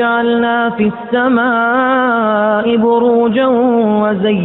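Qur'anic recitation in melodic tajweed style: a single reciter's voice holding long drawn-out notes with slow ornamental bends in pitch, taking a short breath about a second in.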